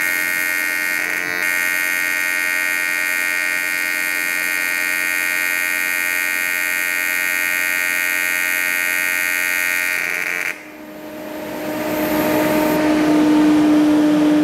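AC TIG welding arc from a Parweld XTM211Di inverter welder on aluminium, a steady buzz, running on its recalled auto-set AC parameters. The arc cuts off abruptly about ten and a half seconds in, and a steady hum and hiss then rises.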